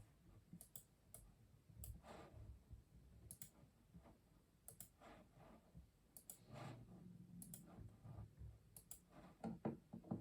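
Faint, slow, irregular keystrokes on a custom mechanical keyboard: scattered clicks, often in pairs, with soft low thuds, and a quick run of keys near the end.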